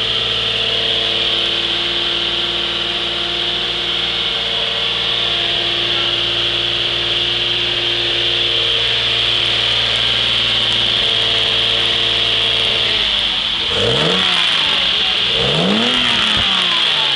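BMW M1's 3.5-litre straight-six idling steadily, then revved twice near the end, each rev rising and falling back quickly.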